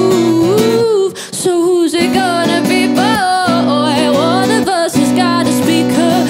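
A female singer's voice, singing sliding, ornamented runs over guitar and band accompaniment in a live song.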